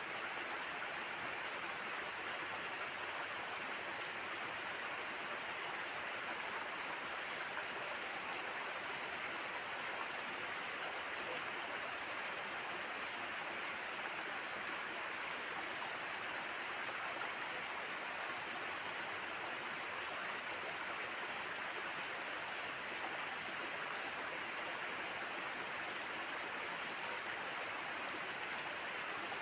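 A steady, even rushing hiss of outdoor ambience, unchanging throughout, with no distinct events.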